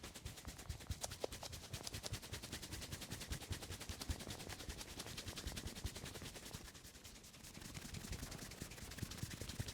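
Head massage by hand: a fast, even train of sharp percussive taps or slaps, easing off briefly about seven seconds in.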